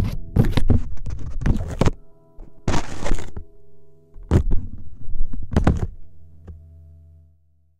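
Acoustic guitar amplified through a PVDF film pickup under the bridge: fingers tap and scratch on the bridge and top. This gives sharp knocks and a scratchy hiss with plenty of high end, while the open strings ring faintly behind and die away near the end.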